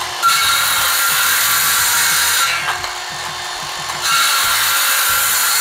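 Ryobi P506 18V brushed 5-1/2 in. cordless circular saw cutting 2x4 lumber, with a steady high whine during the cut. It goes quieter about two and a half seconds in and bites in loudly again about four seconds in.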